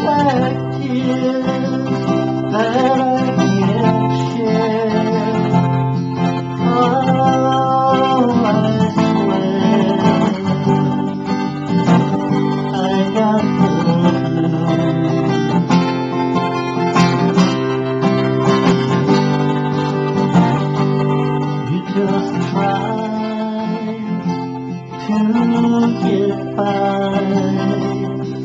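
Acoustic guitar strummed steadily in an upbeat blues-rock song, with a melody line over it that bends up and down in pitch.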